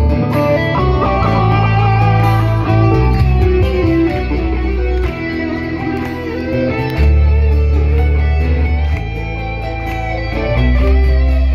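Live rock band playing an instrumental passage with no singing: an electric guitar lead with bending notes over acoustic guitar and a bass line whose low notes change every second or two.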